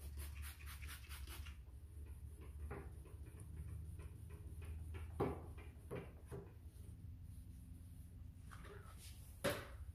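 A spray bottle squirting water onto the headlight several times in quick succession, then faint scrubbing of a hand-held sanding disc over the wet plastic lens, broken by two sharp knocks, about five seconds in and near the end.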